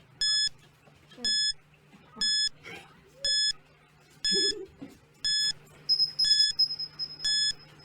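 Countdown timer beeping, one short high electronic beep about once a second, with faint voices between the beeps.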